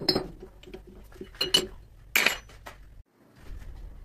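Several sharp metal clinks and knocks, the loudest about a second and a half and a little over two seconds in.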